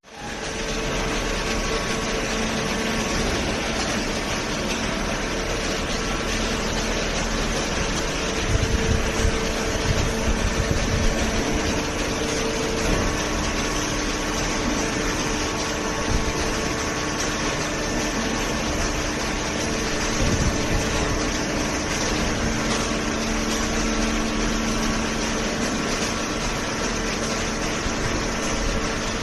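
Hydraulic waste paper baler running: the pump and electric motor give a steady mechanical hum with a few held tones, and there are some uneven knocks around the middle.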